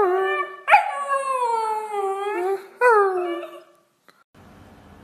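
Husky puppy howling in three drawn-out calls, each jumping up in pitch and then sliding down. The howling stops about four seconds in.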